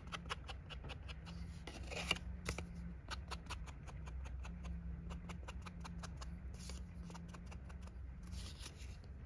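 Ink pad tapped repeatedly against the edges and corners of paper card pieces to distress them with ink: a run of quick, light taps, several a second.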